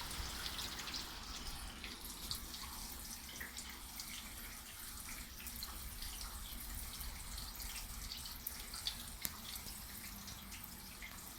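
Rain falling and dripping: many separate drops tick and patter irregularly, with two sharper drops a little past the middle, over a steady low rumble.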